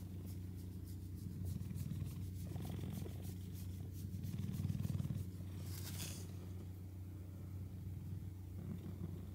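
Domestic cat purring steadily, a sign of a relaxed, contented cat being stroked. There is a brief rustle about six seconds in.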